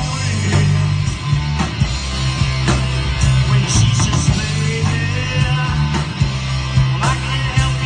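Live rock band playing: electric guitars, bass and drums at full volume.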